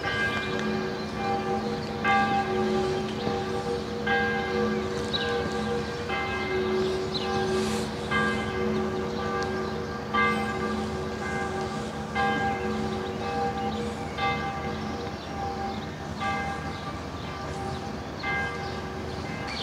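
Church bells ringing, a fresh stroke about every two seconds with the low hum lingering between strokes.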